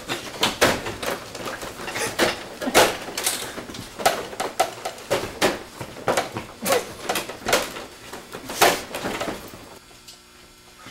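A man struggling at a photocopier, with his shirt caught in it: a string of short, irregular sharp noises, about two or three a second, that stop about nine seconds in.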